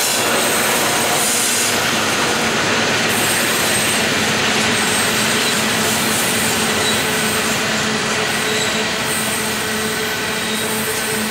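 Loaded coal hopper wagons of a freight train rolling past at speed: a steady, loud noise of steel wheels on rail, with thin steady whining tones over it.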